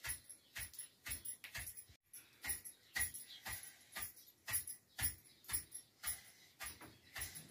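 Wooden pestle pounding water-moistened pearl millet (bajra) in a stone mortar, striking steadily about twice a second. This is the coarse crushing of the grain for bajricha khichda.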